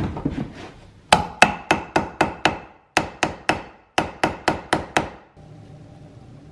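Cobbler's hammer striking a leather heel base held on an iron shoe last: about fourteen quick, sharp blows in three runs, each with a short metallic ring from the last. The hammering stops about five seconds in, leaving a low steady hum.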